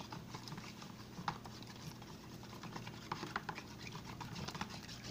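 A knife end stirring a wet lotion-and-soap mixture in a plastic tub: faint, irregular small clicks and scrapes against the plastic.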